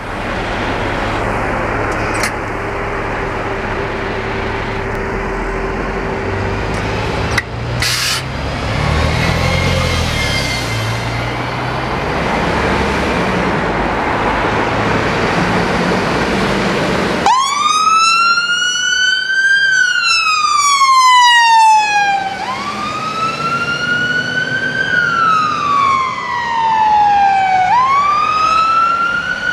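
Scania P280 fire engine's diesel engine running as it pulls out of the station. About halfway through, a two-tone-free wail siren starts suddenly, each cycle rising quickly and sliding slowly down over about five seconds, three times.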